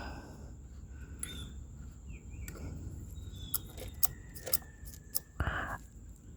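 Small scattered clicks and scrapes of hand work on a chainsaw as its chain tension is adjusted, with a short scrape about five and a half seconds in, over a low steady rumble.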